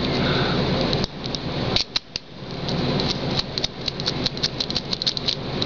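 Keys and small metal lock parts being handled: a rustle of handling, then a quick run of light metallic clicks and clinks.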